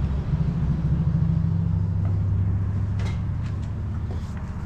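Low, steady engine hum of a motor vehicle running nearby. It swells about a third of a second in and eases off toward the end, with a few light clicks about three seconds in.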